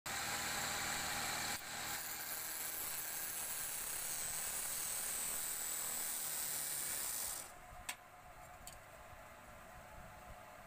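Wood lathe spinning a square wooden blank while a chisel cuts into it, a steady hissing cut. About seven and a half seconds in the sound drops away as the lathe is stopped, followed by two short clicks.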